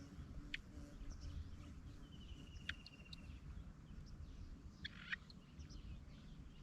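Quiet outdoor ambience: a steady low rumble with a few faint bird chirps, and a short rapid buzzing trill about two seconds in.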